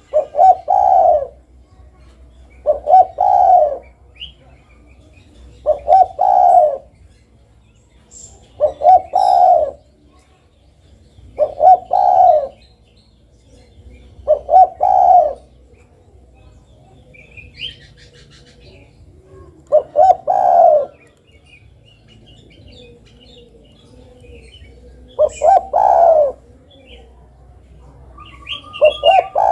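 Spotted dove cooing: a short phrase of two or three low coo notes repeated about every three seconds, with one longer pause about halfway through. Faint high chirps from small birds sound between the phrases.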